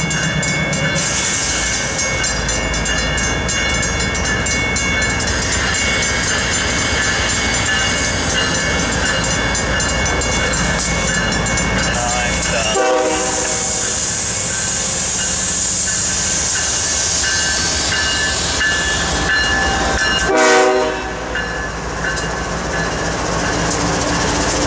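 A loaded freight train of three BNSF diesel locomotives and slab cars rolling out of the yard: a steady rumble of engines and cars with a high steady squeal. There are two brief pitched sounds, one about 13 seconds in and one about 20 seconds in.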